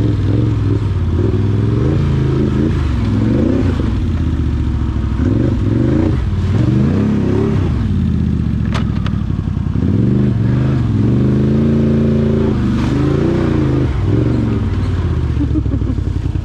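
Can-Am Outlander 850XT ATV's V-twin engine running while riding, its pitch rising and falling again and again as the throttle is opened and closed. A couple of sharp clicks about halfway through.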